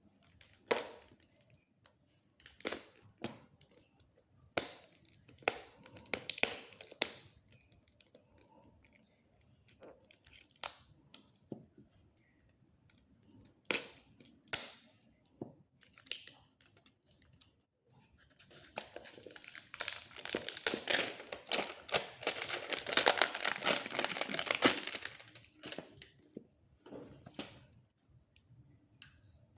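Smartphone packaging being handled during an unboxing: scattered short rustles and taps, then about seven seconds of continuous crinkling and tearing, as of plastic wrap being pulled off.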